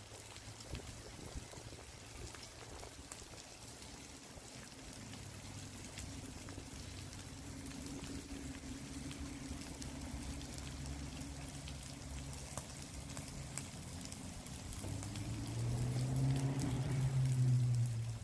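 Food crackling and sizzling on a barbecue hotplate, with a low, steady engine hum that grows louder near the end.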